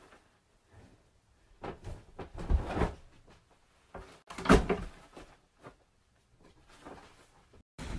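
A few dull knocks and thumps with some rustling between them, the loudest about two and a half and four and a half seconds in.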